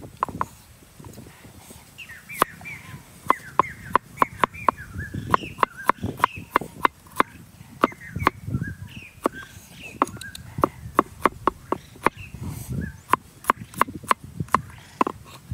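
Large kitchen knife chopping chillies and shallots on a thick wooden chopping block: a quick run of sharp wooden knocks, about two to four a second.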